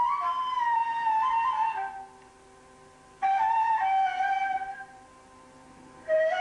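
Solo flute playing a slow melody of long held notes that slide downward in pitch, broken twice by pauses of about a second where only a faint low tone lingers.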